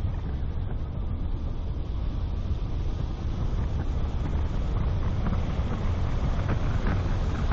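Wind buffeting the microphone of a bonnet-mounted camera over the steady low rumble of the car driving along an asphalt road.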